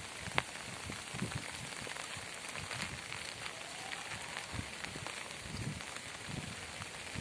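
Light rain pattering on a river's surface and the bankside plants, an even hiss full of fine ticks. A single sharp click comes about half a second in, and soft low thuds are scattered through.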